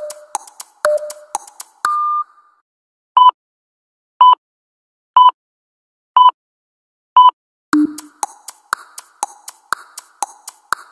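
Quick ticking electronic beat, clicks like a wood block, stopping about two seconds in with a short held beep. After a pause, five short beeps a second apart count down, and the ticking beat starts again near the end.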